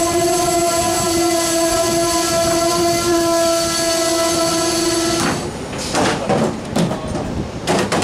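Amtrak passenger coaches' brakes squealing in one steady high tone as the train slows to a stop, cutting off about five seconds in. Then several sharp metallic clanks and knocks as the coach's door trap and step stool are set down.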